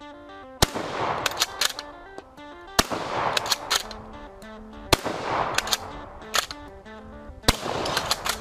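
Four shots from a bolt-action shotgun, about two seconds apart, each trailing off in a short echo.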